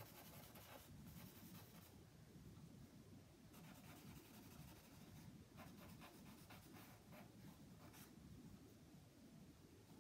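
Faint scratching of a willow charcoal stick on cartridge paper as an area is shaded in, in clusters of quick short strokes.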